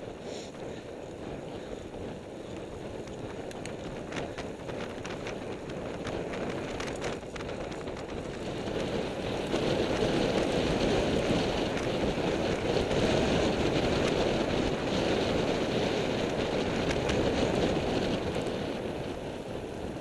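Wind rushing over the microphone of a camera on a road bike moving at speed, with tyre noise on tarmac. It grows louder about halfway through as the speed rises.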